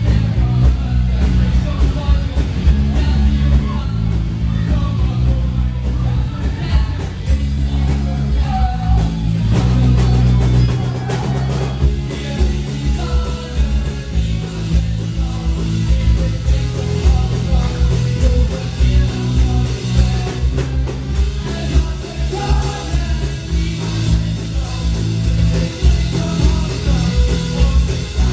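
Live band playing loud rock music, a vocalist singing into a microphone over a drum kit and a heavy, steady bass line.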